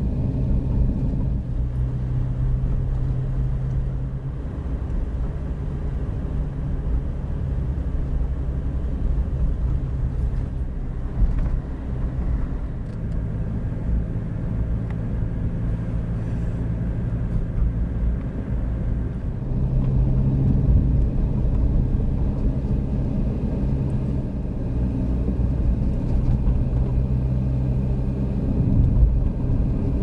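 A car being driven: steady engine and road rumble, with a low engine hum that fades and comes back a few times.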